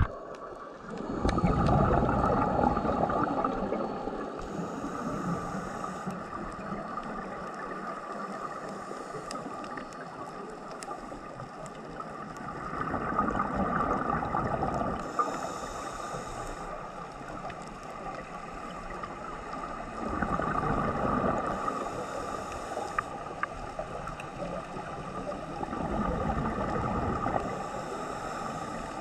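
Scuba diver breathing through a regulator underwater: four loud rushes of exhaled bubbles roughly six seconds apart, each with a short high hiss of the regulator as he breathes in.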